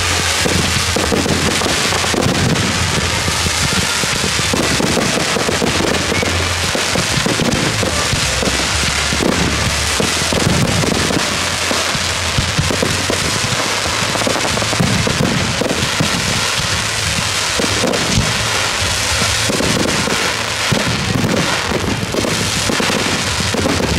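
Fireworks display: dense crackling and popping from bursting stars and comets, with a steady stream of sharp reports and music playing underneath.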